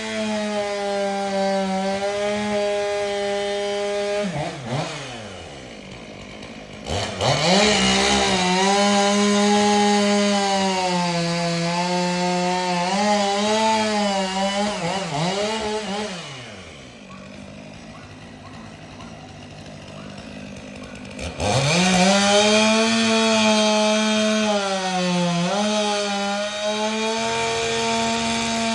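Gas chainsaw cutting a canary palm at full throttle, its pitch wavering under load. It drops to idle about four seconds in, revs back up near seven seconds, idles again from about sixteen to twenty-one seconds, then revs up to cut again.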